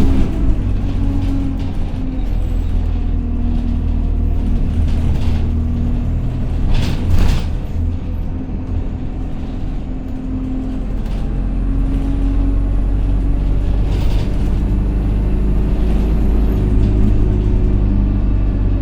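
Interior of an Alexander Dennis Enviro200 single-deck bus on the move: the engine drive gives a steady low rumble and a droning hum, the loud 'hoover' sound. A brief louder rush of noise comes about seven seconds in.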